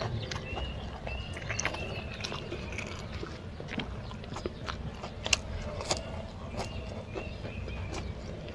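Close-up mouth sounds of someone eating fried rice by hand: chewing and lip-smacking in a string of small, irregular wet clicks.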